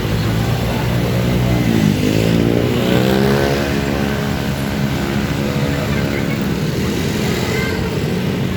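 Road traffic: a large vehicle's engine passes close by, its pitch dipping about two seconds in and then rising as it accelerates, over steady traffic noise.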